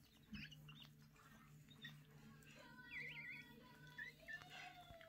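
Newborn Pomeranian puppy making faint, high squeaks, with a short wavering squeak about three seconds in and a few brief ones around it.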